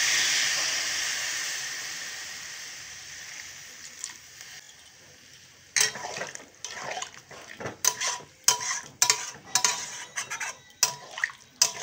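Water poured into a hot metal kadai of spiced, fried beetroot, carrot and potato hisses, and the hiss dies away over the first few seconds. From about halfway, a metal spatula stirs the vegetables, scraping and clinking against the pan in a run of ringing knocks.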